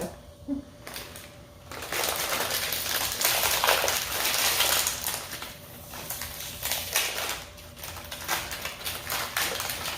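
Snack bag of potato sticks crinkling and crackling as it is pulled and wrestled open, with a dense stretch of crackle from about two to six seconds in, then scattered crinkles.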